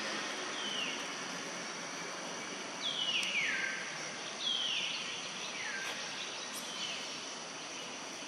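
Outdoor ambience of a steady insect hiss, with a series of high calls that slide downward in pitch, about six of them, the loudest a few seconds in.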